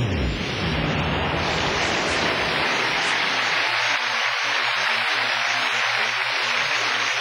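Large audience cheering and applauding, a steady wash of noise with no music under it.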